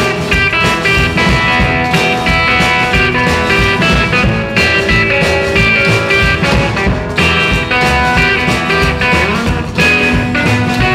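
Instrumental break of a rockabilly song with no singing: guitar playing over a steady beat of bass and drums.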